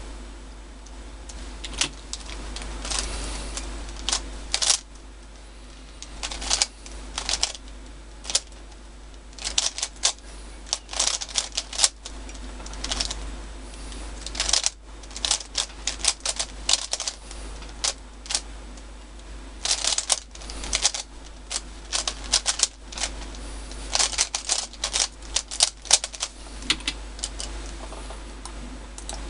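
MoYu Weilong 3x3 speed cube being turned fast through a timed solve: runs of rapid clicking turns broken by short pauses, for about 25 seconds.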